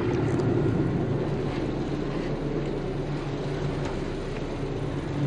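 Twin diesel engines of a 1999 Carver 504 motor yacht running steadily under way, a low drone with a steady hiss over it.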